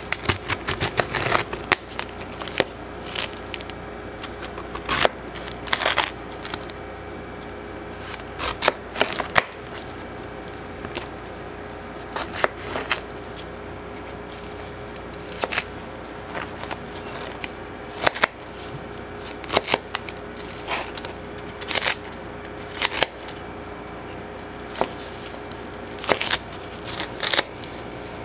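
A large kitchen knife cutting a candy-coated whole apple on a cutting board: sharp cracks of the hard sugar shell breaking and knocks of the blade on the board, coming in irregular clusters, over a steady low hum.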